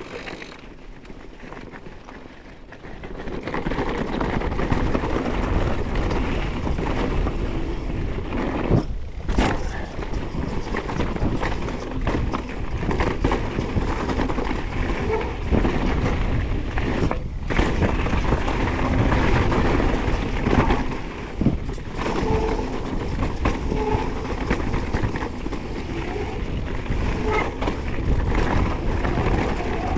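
Riding noise of an electric mountain bike going down a dirt trail: a steady rush of wind and tyre noise on the helmet-mounted action camera's microphone, louder from about three and a half seconds in as the bike picks up speed.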